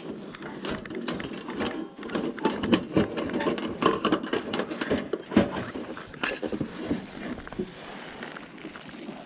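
Rapid clicks, knocks and rattles of a Sho's folding wood stove being taken apart, with a sharp metallic scrape about six seconds in.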